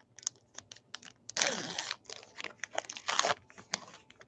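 A trading card pack wrapper crinkling in two loud spells, about a second and a half in and again near three seconds, among light clicks and taps of cards being handled.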